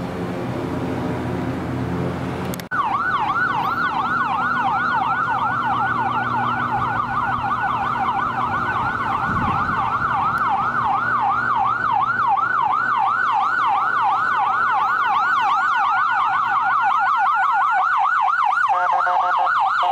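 Ambulance electronic siren in yelp, rising and falling about three times a second, held steady and loud. About a second before the end it switches to a much faster hyper-yelp warble. At the very start, before the siren, there is a few seconds of traffic noise.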